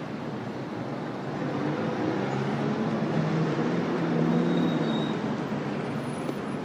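Steady city street traffic noise that swells a little in the middle, with a faint low hum under it.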